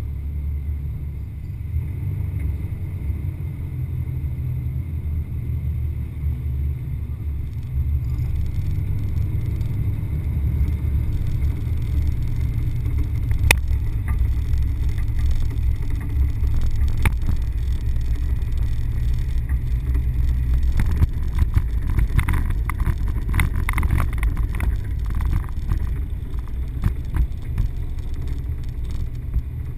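Low, steady engine rumble of an off-road vehicle driving slowly over a dirt lot, heard from on board. Two sharp knocks come about halfway through and a few seconds later, and a stretch of rattling follows in the last third.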